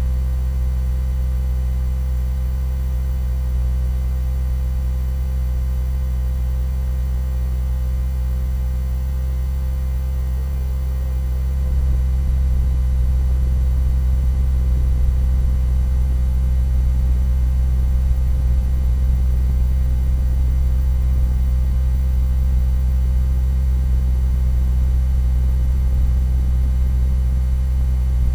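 A loud, steady low hum made of a few fixed deep tones, unbroken throughout and a little louder from about twelve seconds in.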